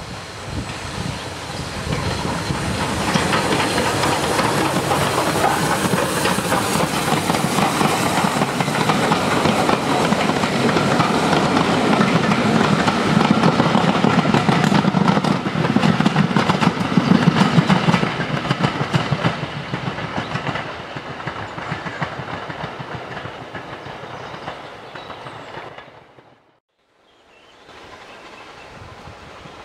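Steam train passing: the Bulleid Battle of Britain class 4-6-2 locomotive no. 34059 and its coaches go by, the wheels clicking rapidly over the rail joints with some steam hiss, growing loud and then fading as the train draws away. Near the end the sound cuts off suddenly and a fainter, distant train sound follows.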